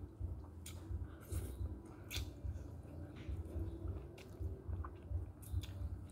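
Person slurping and chewing spicy instant noodles: short, irregular wet mouth sounds and slurps, over a low background rumble.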